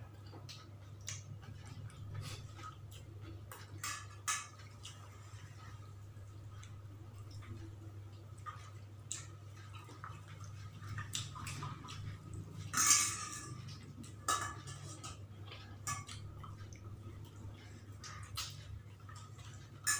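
Eating at a table: scattered small clicks and clinks of plates and tableware and mouth noises of eating, over a steady low hum, with one louder clatter about 13 seconds in.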